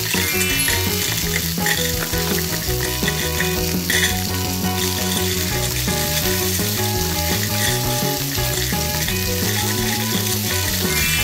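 Steady sizzle of food frying in a pan, a dubbed frying sound effect, since the toy pan of plastic beads cannot sizzle. It goes on without a break.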